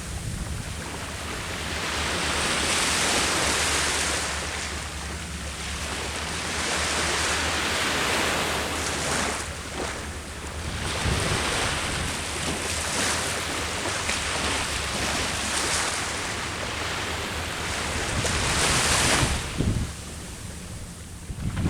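Sea waves breaking on the shore, the surf swelling and fading every few seconds, with the loudest wash near the end. Wind rumbles on the microphone underneath.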